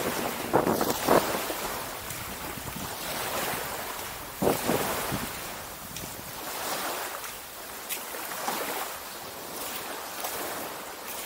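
Small waves washing on a sandy shore, with wind buffeting the microphone. The sound swells and eases, with a few short louder bumps about half a second in, at about a second, and again around four and a half seconds.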